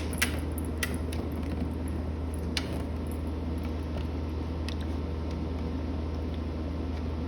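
A few light clicks and scrapes of a small screwdriver and screw against a plastic switch plate as a screw is worked into place, over a steady low hum.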